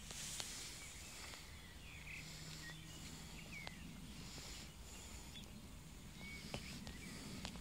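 Quiet rural outdoor ambience: a few faint, short bird chirps over a low steady background hum, with scattered light ticks.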